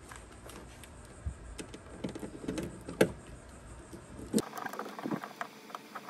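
Faint, scattered small clicks and scrapes of a self-tapping screw and the ground wire's ring terminal being threaded into the vehicle's sheet-metal body by hand and then turned with a screwdriver, with one sharper click about three seconds in.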